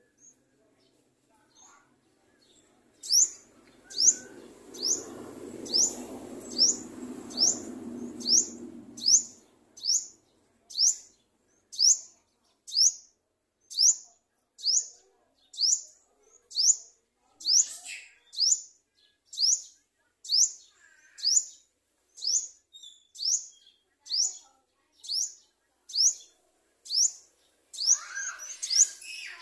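Sunbird repeating a single short, high chirp about once a second. A few seconds in, a low rumbling noise runs under the chirps for about five seconds.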